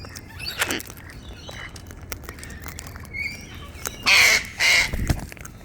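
Wild white cockatoo squawking harshly: one short squawk under a second in, then two loud screeches in quick succession about four seconds in, with small clicks between.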